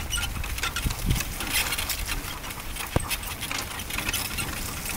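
Sacco dog cart rolling over a grassy track behind two trotting draught dogs: dense, irregular pattering and rattling, with one sharp knock about three seconds in.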